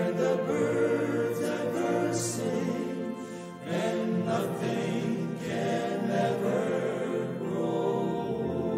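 Male choir of about ten men singing a sacred song together in harmony, with sustained chords and a short breath between phrases about three and a half seconds in.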